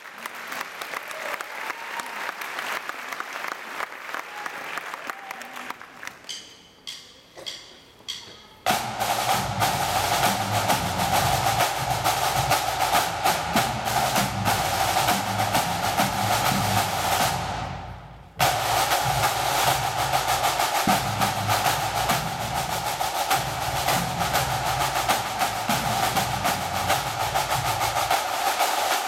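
Pipe band drum corps playing a drum salute of snare, tenor and bass drums. There are a few seconds of lighter clicking and sparse stick clicks first, and the full drumming comes in sharply about nine seconds in. The drumming breaks off briefly near eighteen seconds and then carries on.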